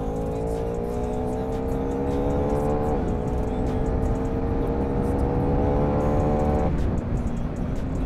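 KTM Duke 390's single-cylinder engine accelerating hard over wind noise: its note climbs steadily, drops at an upshift about three seconds in, and climbs again. A little before seven seconds it breaks off and gives way to a lower, steady note.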